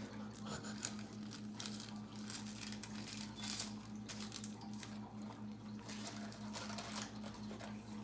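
Trading cards being handled and flipped through by hand: soft, scattered clicks and slides of card on card, over a steady low hum.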